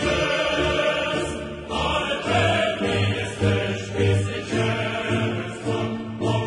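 Choir singing a Polish WWII partisan song, with a regular pulsing bass beneath the voices.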